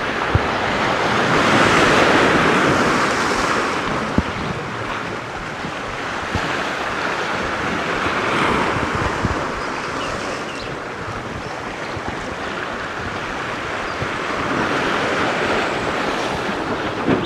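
Sea waves breaking and washing over shoreline rocks, swelling three times as successive surges come in, with wind buffeting the microphone.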